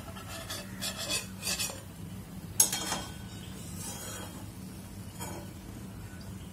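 Stainless steel slotted spoon scraping and clinking against a frying pan and a plate as fried gulab jamuns are lifted out of the oil, over a faint sizzle of frying. A few short clinks come in the first couple of seconds, the sharpest a little over two and a half seconds in, and a lighter one past five seconds.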